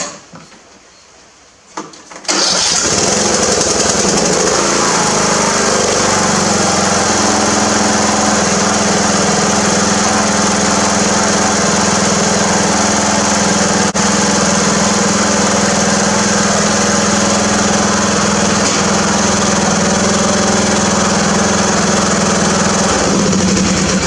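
Briggs & Stratton 15.5 HP PowerBuilt lawn tractor engine starting about two seconds in, then running steadily, freshly fitted with a new flywheel fan in place of its cracked plastic one.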